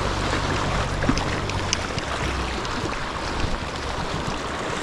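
Sea water washing against shore rocks, with wind on the microphone, and a low steady hum in the first two seconds.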